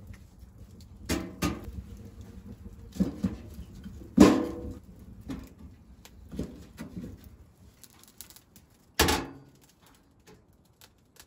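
Small steel wood stove's door and damper being handled: a series of separate metal clanks and knocks, the loudest about four seconds in and another strong one about nine seconds in.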